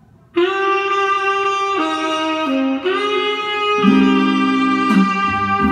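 Recorded music played through a Yamaha alnico full-range speaker: a saxophone melody of long held notes starts about half a second in, and lower chords join under it about four seconds in.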